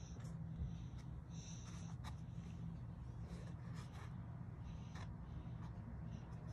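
Faint scratching strokes and light clicks of craft materials being handled and drawn on over cardboard, with a steady low hum underneath.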